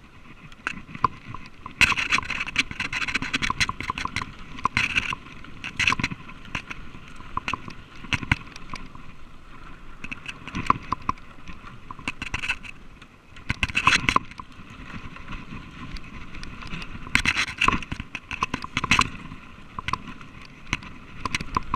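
Mountain bike rattling and clattering as it rolls fast down a rough trail, with irregular sharp knocks from the wheels and frame jolting over bumps, partly over wooden boardwalk planks. The hardest jolts come about two seconds in, around fourteen seconds, and in a cluster a few seconds later.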